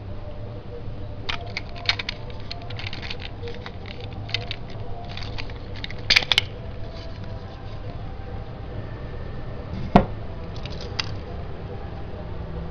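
Small hard-plastic clicks and rattles as a Plarail C12 toy locomotive is handled and its body shell is taken off the chassis, with one sharp click about ten seconds in.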